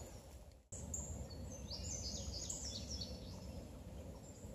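Songbirds singing: a quick string of high, downward-sliding notes, densest from about one to three seconds in, over a steady low background hum. The sound drops out for an instant under a second in.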